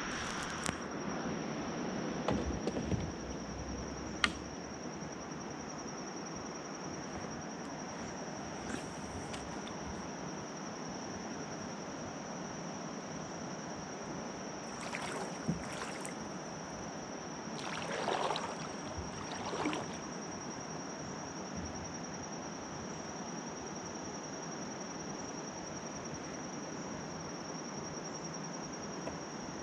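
Steady high-pitched drone of insects (crickets or katydids) in the riverside trees, with a few soft water swishes from the kayak now and then.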